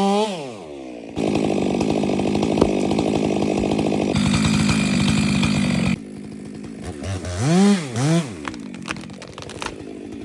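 Two-stroke chainsaw: its revs fall away at the start, then it runs at steady full throttle for about five seconds, cutting wood. It then drops to idle, gets two quick rev blips that rise and fall, and settles back to idle.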